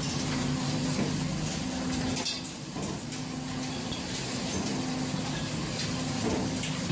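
A fishing boat's machinery gives a steady low drone under a steady hiss, with a few sharp metal knocks on the working deck.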